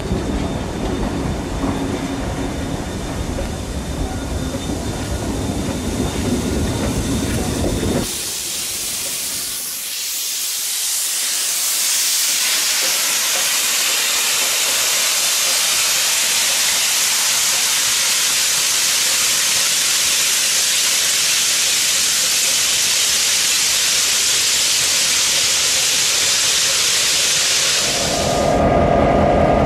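Low rumble around a standing train, then after about eight seconds NSW 59 class steam locomotive 5917 blowing off steam from its safety valves, a loud steady hiss that lasts about eighteen seconds. Near the end the hiss gives way to the steady hum of a diesel locomotive.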